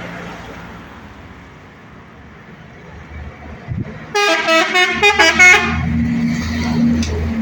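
Ford Cargo 2524 truck approaching with a low diesel rumble. About four seconds in, its horn gives a loud blast of about a second and a half that jumps through several different notes. Then the engine's rumble swells as the truck comes close.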